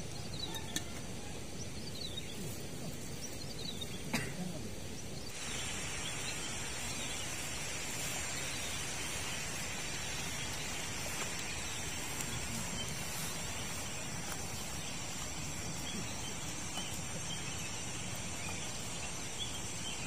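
Outdoor ambience with a few birds giving short falling chirps over a steady background hiss. About five seconds in, the background changes abruptly to a fuller, steady hiss with a high, even buzz on top.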